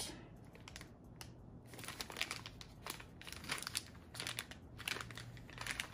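Plastic parts bag crinkling in the hands as it is handled and opened: a scatter of faint, irregular crackles, sparse at first and busier from about two seconds in.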